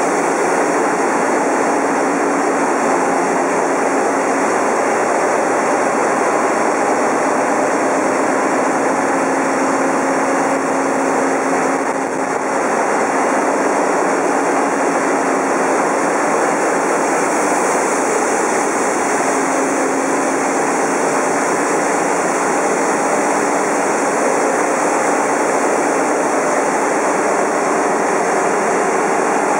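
Loud, steady machinery noise of running engines and pumps in a large ro-pax ferry's engine room: an even din with a few steady hums beneath it.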